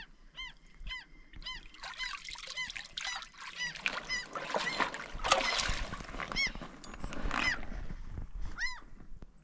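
A bird calling over and over: short, rising-and-falling calls about twice a second. In the middle there are a few seconds of louder noise.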